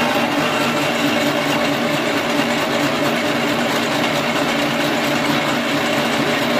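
Motor of a borewell pipe-pulling hoist running steadily under load, with a constant hum, as it lifts the column pipe and submersible pump up out of the bore.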